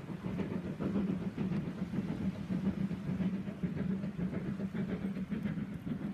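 A boat's engine running with a steady low hum, over a continuous rushing noise.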